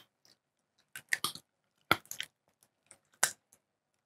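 Short crisp crunches and crackles close to the microphone, in small clusters about a second apart with silence between.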